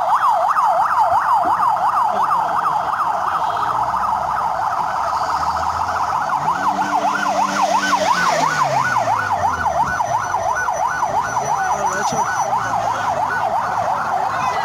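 Electronic yelp siren on a convoy escort vehicle, sweeping rapidly up and down about four times a second. A lower tone falls away about halfway through.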